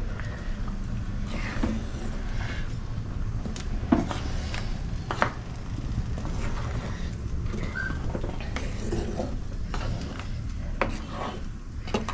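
Wooden spoon stirring thick curry in a clay pot, with a few sharp knocks of wood on the pot, over a steady low hum.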